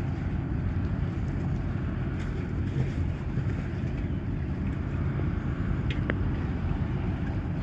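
Steady low rumble of a ferry's engines, mixed with wind buffeting the microphone.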